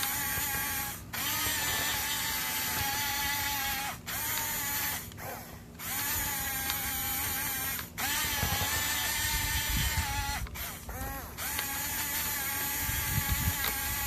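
Radio-controlled model bulldozer's electric drive motors and gearboxes whining as it pushes dirt. The whine cuts out briefly about five times and rises in pitch each time it starts again, with low rumbling in the middle and near the end.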